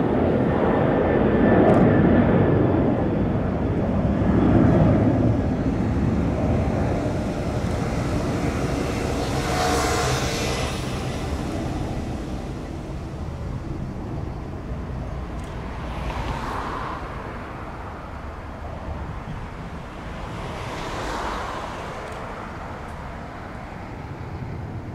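Twin jet engines of an Airbus A330-300 rumbling as the airliner climbs away, the sound fading steadily as it recedes. A few brief swells of noise rise and pass along the way.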